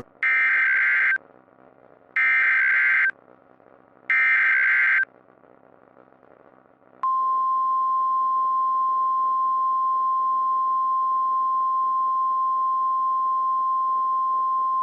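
Emergency Alert System SAME header: three buzzing data bursts of about a second each, two seconds apart. About seven seconds in, the steady single-pitch NOAA Weather Radio 1050 Hz alert tone begins and holds.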